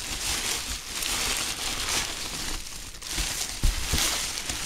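Packing material crinkling and rustling in surges as it is handled and pulled from a shipping box, with a couple of soft knocks a little past the middle.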